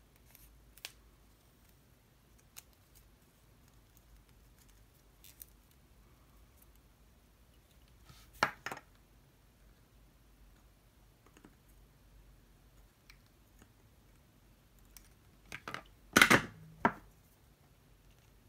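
Small plastic clicks and handling as a nylon zip tie is worked around a small circuit board. There is a sharper pair of clicks about halfway, and near the end a cluster of loud sharp snaps as diagonal cutters trim the zip tie's tail.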